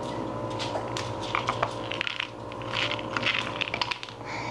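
English bulldog puppies moving about on a wooden floor and a blanket: irregular clusters of short clicks and scuffles from their claws and paws, in two bunches.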